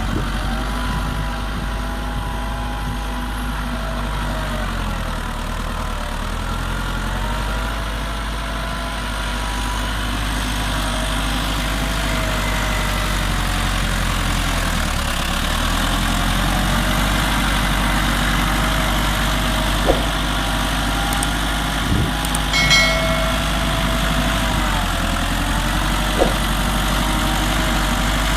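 A 385 tractor's diesel engine runs steadily under load while pulling a cultivator through the soil. Its pitch sags and recovers a few times as the load changes. A few sharp knocks and a brief higher-pitched sound come about three-quarters of the way through.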